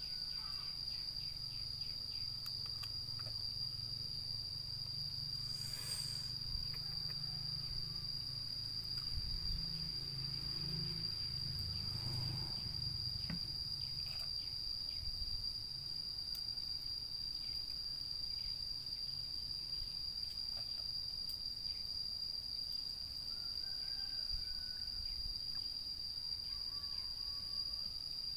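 Insects trilling, cricket-like, in one steady high-pitched tone without a break, over a low rumble.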